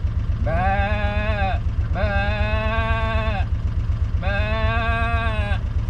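Three long, even bawls like a calf calling, each about a second and a half, over a utility vehicle's engine idling with a steady low throb.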